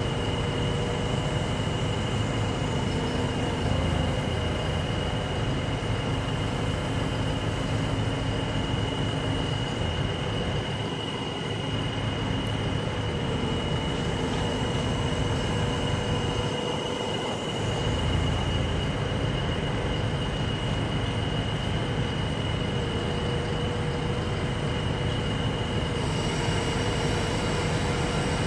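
A mobile crane's engine and hydraulics run steadily while the crane lowers a slung load, with a constant high whine over a low engine rumble that eases off briefly twice.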